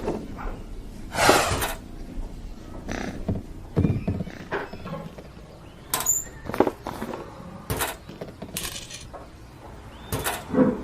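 Cartoon sound effects: a string of separate knocks and bangs, with a few short noisy rushes, the loudest a little over a second in.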